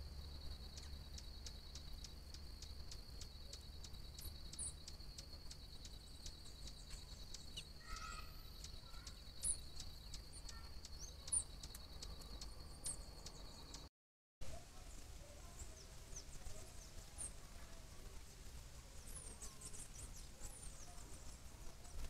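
Faint forest ambience with scattered short, high chirps of small birds. For the first part a steady high-pitched buzz pulses about three times a second; it stops at a brief dropout about 14 seconds in, leaving only the chirps, which come thicker near the end.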